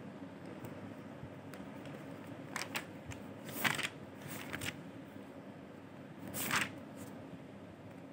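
Low room noise with a handful of short, faint rustles and clicks clustered between about two and a half and seven seconds in, like paper or objects being handled.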